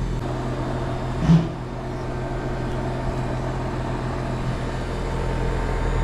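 Bosch heat pump outdoor unit running with a steady low hum. One brief knock about a second and a half in.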